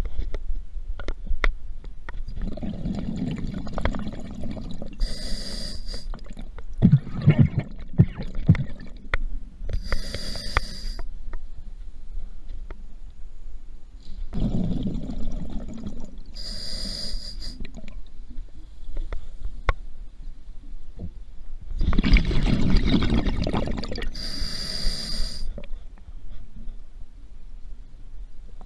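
Scuba diver breathing through a regulator underwater: four slow breaths, each a low rumbling rush of exhaled bubbles followed by a short hissing inhale with a thin whistle in it.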